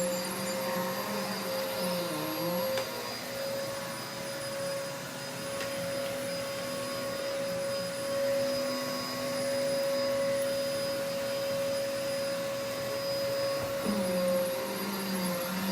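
Vacuum cleaner running steadily, its motor whine holding one pitch while a lower hum wavers and dips about two seconds in and again near the end.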